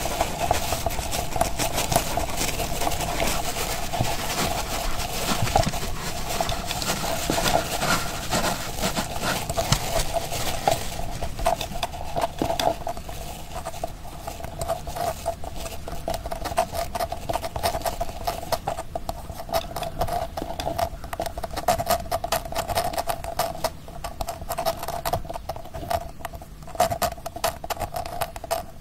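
A steady mechanical buzz holding one pitch, with dense rapid rattling over it, like a small machine running; it grows somewhat quieter in the second half.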